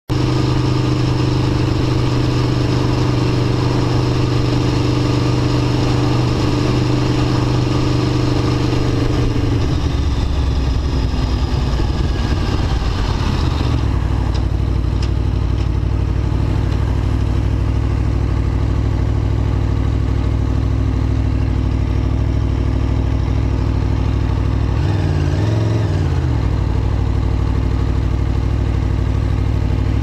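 Aprilia Tuono V4 1100 RR's 65° V4 engine, heard from the rider's seat, running at steady revs. About a third of the way in it drops in pitch as the bike slows, then runs steadily at lower revs, with a short rise and fall in revs near the end.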